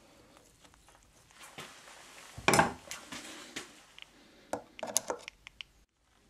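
Small metallic clinks and ticks of a screw and screwdriver being worked into the cover of a chainsaw diaphragm carburetor, with one louder knock about two and a half seconds in and a quick run of clicks near the end.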